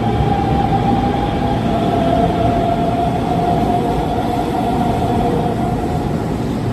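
Hanshin 5500 series electric commuter train running, with a steady rumble and a motor whine that slowly falls in pitch as it slows, fading out near the end.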